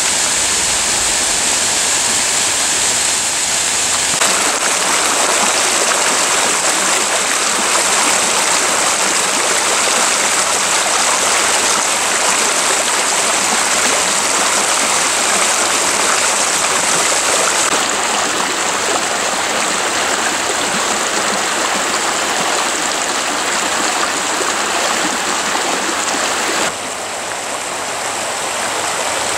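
Rushing water of Cataract Falls, a steady loud wash of falling and flowing water. Its tone shifts abruptly a few times, and it drops slightly in level near the end.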